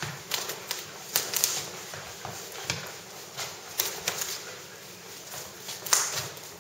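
Irregular, quick slaps and taps of hands and forearms striking and meeting during a Wing Chun chi sao (sticking hands) exchange, with the loudest smack near the end.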